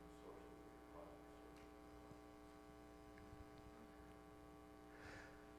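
Near silence: room tone with a steady electrical mains hum, and a faint brief sound about five seconds in.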